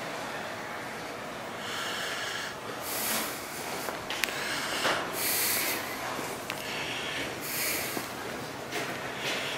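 A person breathing close to the microphone: a noisy breath in or out every second or two, over a steady background hiss.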